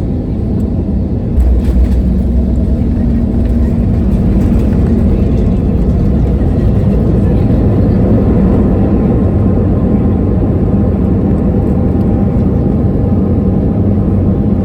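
Loud steady rumble inside the cabin of an Airbus A320neo on landing. About a second and a half in, a sudden thump reaches all frequencies, and the rumble stays louder after it, as at touchdown and rollout.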